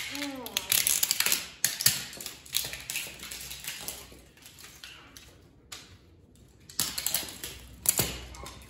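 Old plastic toy cars cracking and crunching under a high-heeled boot on concrete: a dense run of snaps and crackles in the first two seconds, scattered cracks after, then another burst of crunching about seven seconds in.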